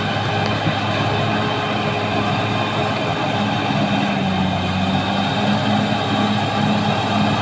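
Caterpillar D6R XL bulldozer's diesel engine running steadily with a low hum, a faint high whine drifting slightly in pitch above it.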